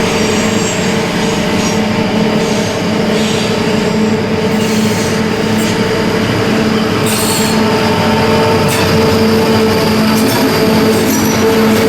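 Diesel-hauled freight train of limestone wagons passing: a steady diesel locomotive engine hum under the rolling wagons, with short, high-pitched wheel squeals at intervals.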